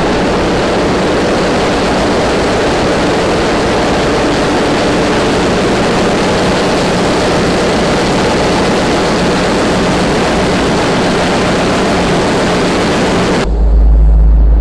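Heavy ship machinery running with a loud, steady drone. Near the end it cuts suddenly to a deep rumble of wind on the microphone.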